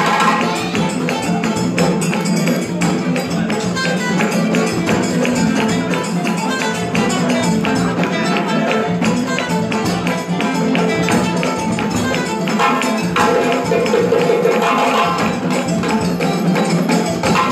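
African dance music: fast, dense percussion that keeps up a steady rhythm.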